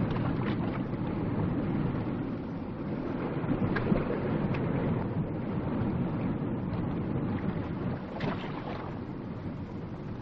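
Steady rushing of wind and sea on an old film soundtrack, with a few faint brief noises on top.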